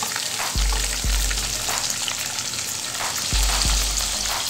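Hot oil sizzling hard as yogurt-marinated chicken pieces are scraped from a bowl into the pan with a spatula, with a few knocks from the pieces and the bowl.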